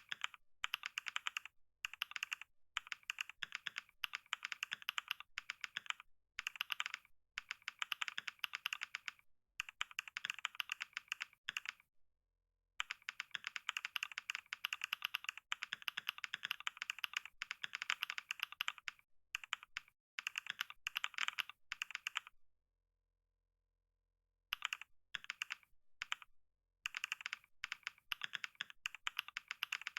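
Fast typing on a computer keyboard, rapid runs of key clicks broken by short pauses, with one longer silent gap about three quarters of the way through.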